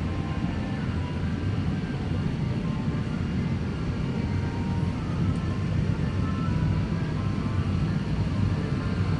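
Steady low rumble of an airliner cabin's background noise, with faint scattered tones above it.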